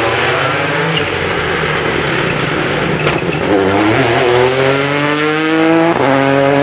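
WRC rally car accelerating hard, its engine climbing in pitch through the gears, with gear changes about a second in, midway and near the end.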